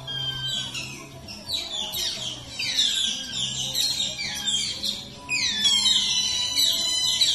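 Asian small-clawed otter chirping: rapid, high-pitched squeaking calls, each falling in pitch, several a second, growing louder and more crowded in the second half. Faint low music hums underneath.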